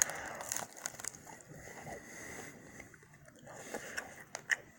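Someone biting and chewing a McDonald's hash brown, with a few sharp clicks among the chewing.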